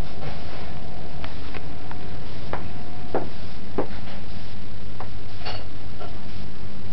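A steady low hum, with about six short ticks in the first four seconds, the strongest around the middle.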